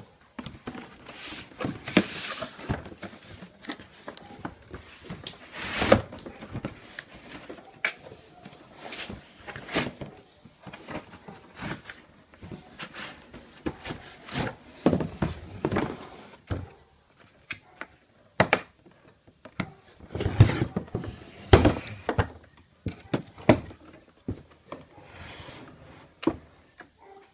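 A box being opened and its contents handled: irregular knocks, thunks and scrapes, some sharp and some dull, scattered throughout.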